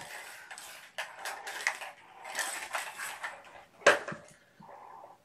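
Hard plastic cat toys being handled and moved about: irregular rattling and scraping, with one sharp clack about four seconds in.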